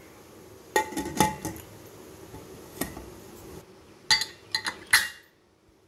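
A stainless steel pressure cooker lid being fitted and closed onto the pot: a few ringing metal clanks about a second in, one more near three seconds, and another quick cluster of clanks around four to five seconds.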